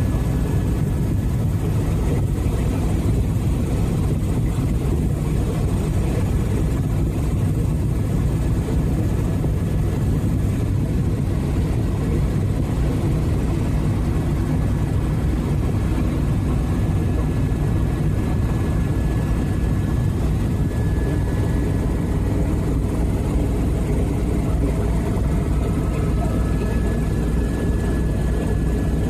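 Helicopter in cruising flight heard from inside the cabin: the steady drone of the rotor and turbine engine, with a thin steady whine above it.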